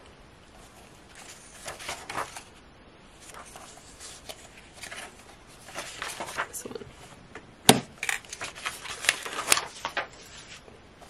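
Paper planner inserts rustling and shuffling as they are handled and turned in a ring binder, in several short irregular bursts, with one sharp click about two-thirds of the way through.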